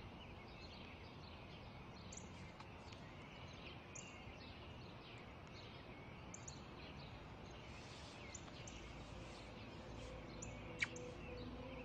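Faint park ambience of small birds chirping repeatedly over a steady low background hiss. Soft music comes in near the end, and there is one brief sharp sound just before the close.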